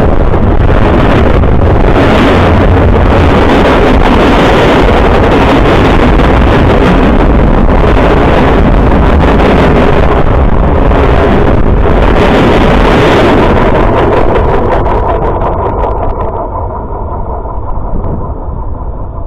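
Freight train passing right beside a ground-level microphone: a very loud, steady rushing rumble of wheels on rail, with wind from the train buffeting the microphone. It dies away about fifteen seconds in as the last cars go by.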